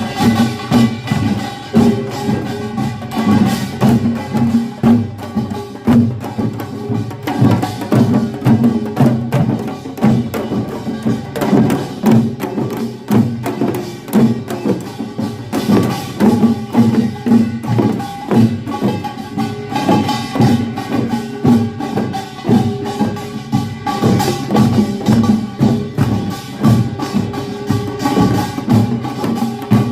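Korean pungmul percussion band playing: drums and gongs beating a fast, driving rhythm, with ringing metallic tones held underneath.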